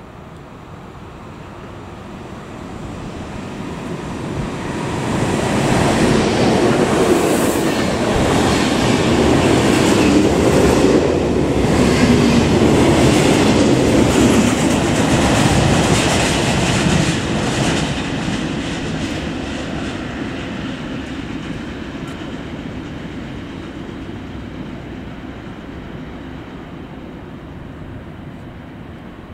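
Freight train passing through at speed on the main line. Its rumble builds over the first few seconds, stays loud for about ten seconds with a clatter of wheels over the rails as the covered wagons go by, then fades steadily as it moves away.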